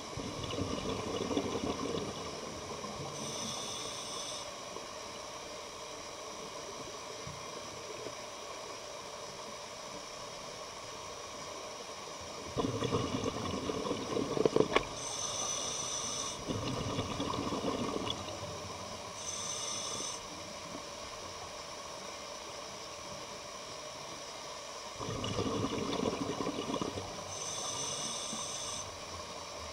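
Scuba diver breathing through a regulator underwater, about four slow breaths: a short high hiss on each inhale alternating with a longer bubbling rush on each exhale, over a steady faint hiss.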